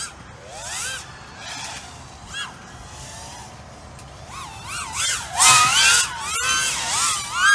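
FPV racing quadcopter on 6S with Cannonball 2406 2020kv motors flying: the motors' high whine sweeps up and down in pitch again and again as the throttle is punched and eased. It is loudest from about five seconds in and again near the end.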